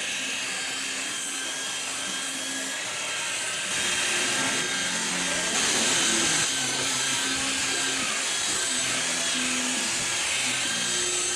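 Electric buffer-polisher whirring steadily while polishing the paint and chrome, getting louder about four seconds in.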